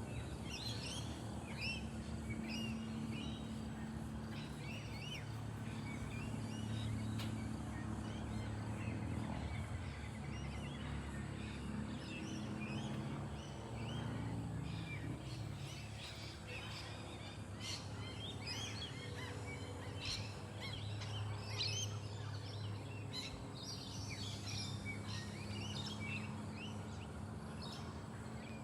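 Wild birds chirping, many short calls one after another, busier in the second half, over a steady low hum.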